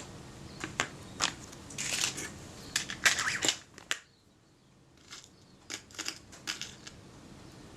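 Small clicks and scrapes of tools and tiny parts being handled at a workbench while the meter settings button and its spring are fitted to a Kodak Retina IIIS camera body, in two clusters with a short lull between them.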